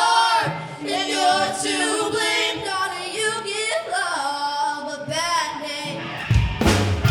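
Voices singing without accompaniment: the a cappella opening of a live rock song. About six seconds in, the full band comes in with drums, bass and electric guitar.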